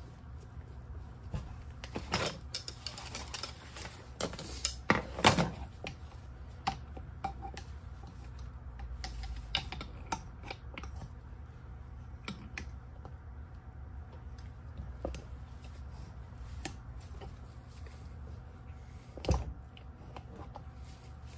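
Steel tire spoons clicking, clacking and scraping against the rim of a scooter's rear hub motor as a knobby tire is levered onto it, in irregular bursts. The loudest knocks come about two and five seconds in, and again near the end.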